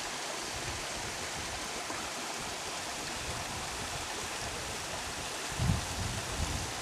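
Steady rush of flowing water, with a few low thumps near the end.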